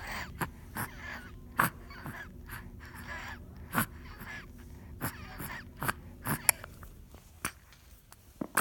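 Six-month-old baby wheezing: a string of short, noisy breaths and small pitched vocal sounds, about one a second.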